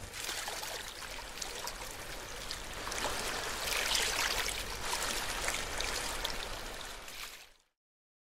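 Rushing, fizzing noise like running water, laid under an animated logo intro. It swells to its loudest about halfway through, then fades out and drops to silence near the end.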